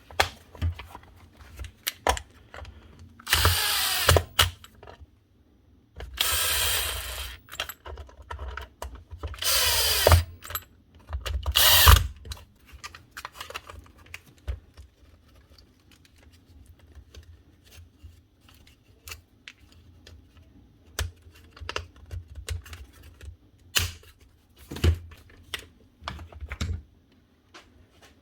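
Webb 20 V cordless strimmer's small DC motor run in three short bursts, each whirring up and then winding down in pitch once the trigger is let go; the head now spins freely after being cleared of the debris that jammed it. A sharp click follows, then a scatter of light clicks and knocks as the tool is handled.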